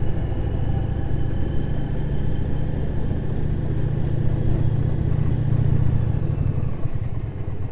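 Indian Challenger motorcycle's V-twin engine running steadily at low speed while the bike rolls along a cobbled track.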